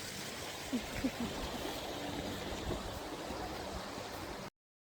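Steady rushing outdoor background noise, with a few faint short sounds about a second in; it cuts off suddenly near the end.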